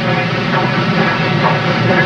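Norfolk & Western articulated steam locomotive running past, a loud, steady mix of exhaust and rolling noise from the engine and its train.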